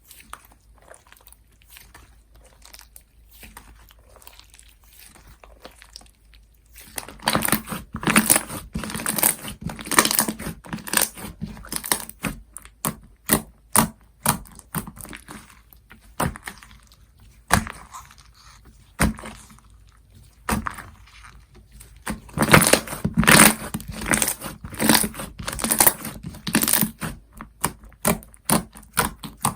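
Foam-bead slime being squeezed and pressed by hand, making crunchy, crackling squishes in irregular clusters. The crackling starts about a quarter of the way in, after a quiet stretch, and is densest near the end.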